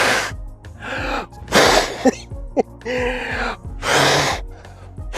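A man blowing hard in several long puffs, about one a second, at a portable gas stove's burner trying to blow out the flame, with background music underneath.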